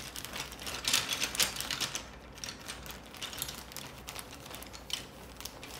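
Colored pencil scribbled back and forth on paper to shade in a drawing: a quick run of scratchy strokes, busiest in the first couple of seconds.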